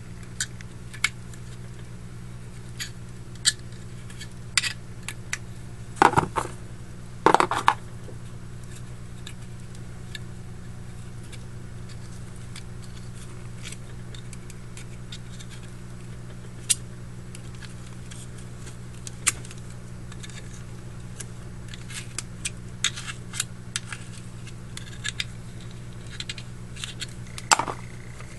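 Scattered light clicks, taps and scratches of hands packing cotton stuffing into a metal Zippo lighter insert, with louder knocks about six and seven and a half seconds in and a cluster near the end, over a steady low hum.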